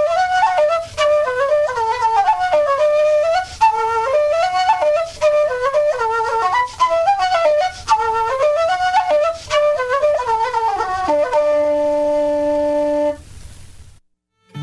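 A flute playing a fast Irish traditional tune in quick, ornamented runs, ending about eleven seconds in on a long held low note that fades out; near silence follows briefly at the end.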